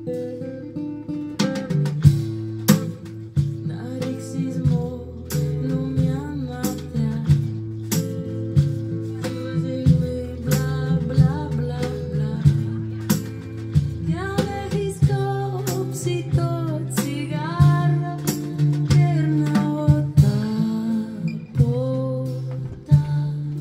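Live music: a woman singing over her strummed acoustic guitar, with a drum kit keeping a steady beat.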